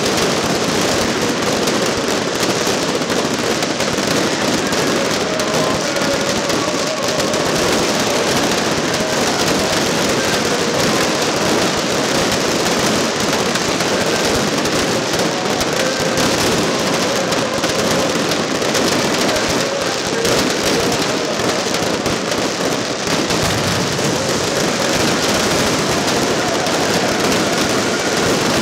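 Large aerial fireworks display: many shells and crackling stars bursting at once, a dense, continuous crackle and banging with no pause.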